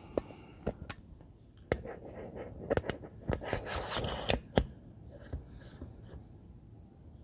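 Handling noise from a camera being set back onto its stand: a run of sharp clicks and knocks with a short scraping rustle, close to the microphone, dying away about two-thirds of the way through.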